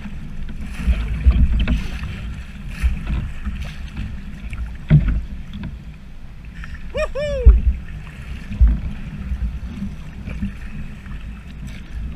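Water lapping and slapping against a kayak's hull as it rides the waves sent out by a calving glacier, with irregular low thumps. About halfway through comes a short cry that rises and falls.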